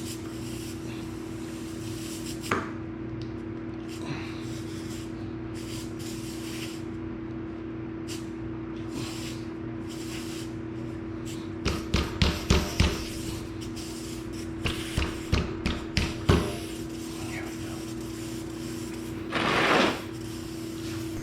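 Hand tools knocking and clicking against the tire during a tubeless tire plug repair: one click early, then two quick runs of sharp knocks, and a short hiss near the end, over a steady hum.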